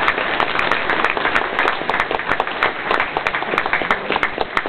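Congregation applauding: many people clapping their hands at once in a dense, irregular patter.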